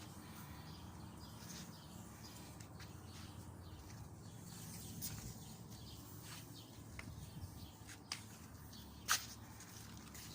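Quiet background hum with scattered faint clicks and light knocks, and a sharper single knock about nine seconds in.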